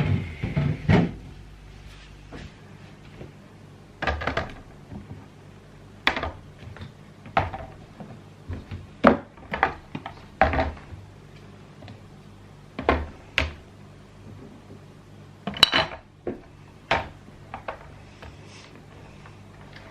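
Food containers and items being handled and set down while a fridge is organized: a series of separate short knocks and clatters every second or two, over a low steady hum.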